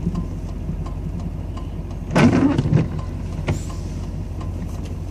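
Duramax V8 turbodiesel pickup engine idling steadily, heard from inside the cab. A short, louder burst of sound comes about two seconds in.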